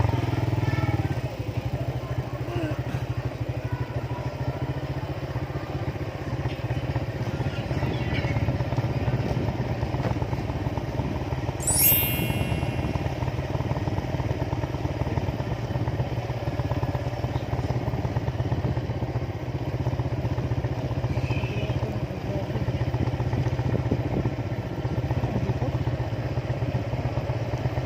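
Motorcycle engine running steadily while riding. About halfway through there is a brief high squeal.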